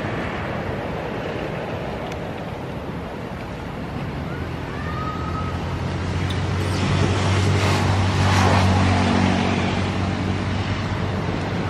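A motor vehicle's engine running nearby: a steady low hum over a wash of traffic noise, growing louder in the second half. A short high chirp sounds about five seconds in.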